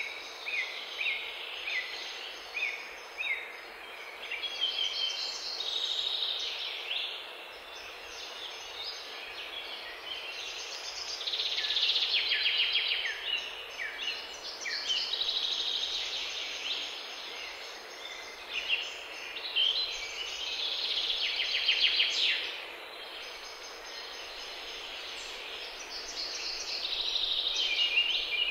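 Several songbirds singing, with rapid trills and short falling chirps that come and go, over a steady background hiss.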